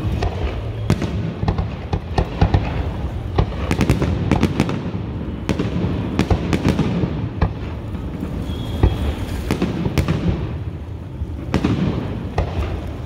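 Grucci aerial fireworks shells bursting in an irregular string of sharp bangs, some bunched in quick clusters, over a continuous low rumble.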